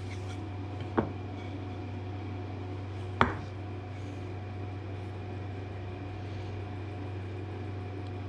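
A steady low hum, with two sharp knocks of wooden pieces being set against each other on the bench, one about a second in and a louder one about three seconds in.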